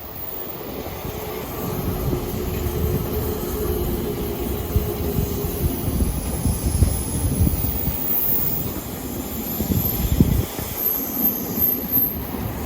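Odakyu Line electric train running past on the tracks: a steady low rumble, with a held tone through the first half.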